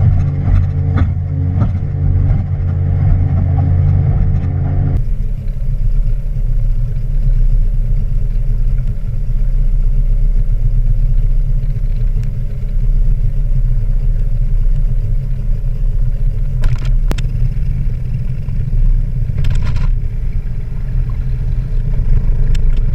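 A motor vehicle running with a steady low rumble. For the first five seconds an engine tone sits well up in pitch; then the sound changes abruptly to a deeper, even rumble with a faint hiss and a few light clicks.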